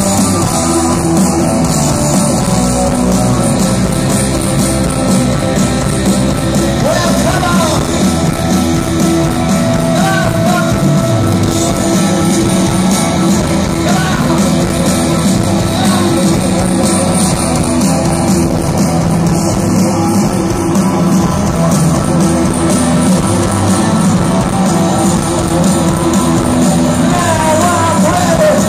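Live punk rock band playing loud through the PA, with electric guitars, bass and drums, and a few sung vocal lines, recorded from within the crowd.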